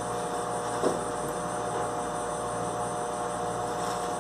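A steady mechanical hum with a couple of constant tones, with a single light knock about a second in.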